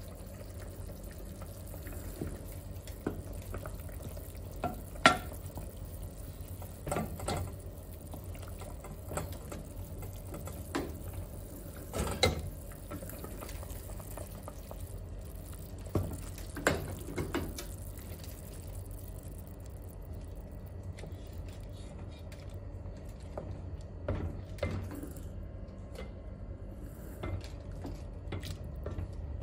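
A wooden spoon stirring and lifting chicken pieces in a pot of broth: liquid sloshing and splashing, with scattered knocks of the spoon against the pot, over a steady low hum.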